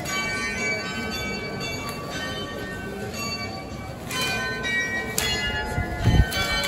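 Bells ringing: strikes at several different pitches, each ringing on and overlapping the next. A low thump about six seconds in.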